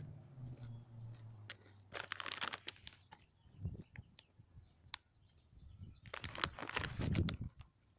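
PopCorners puffed corn chips crunching as they are bitten and chewed, in two bursts of crackly crunching about four seconds apart.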